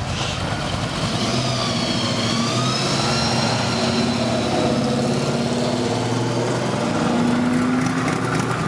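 Classic cars and a hot rod driving slowly past one after another, their engines running at a low idle with a steady low drone that shifts in pitch as each car goes by.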